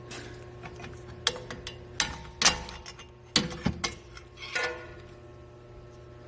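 Irregular metallic knocks and clicks, about seven in five seconds, some with a short ring, the loudest about two and a half seconds in: a hand tool working the strut clamp bolt out of the steering knuckle.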